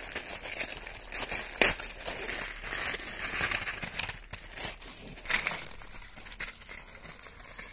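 Paper and plastic wrapping around bundles of safety matchboxes crinkling and rustling as they are handled and unwrapped. There are a couple of sharper crackles, about a second and a half in and again about five seconds in.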